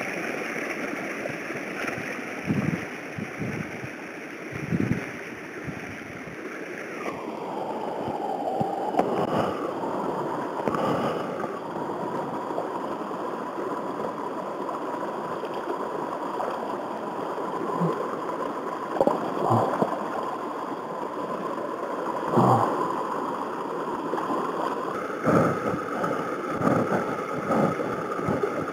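Creek water rushing and gurgling close by, with a few short knocks and splashes from handling in the water, more of them near the end.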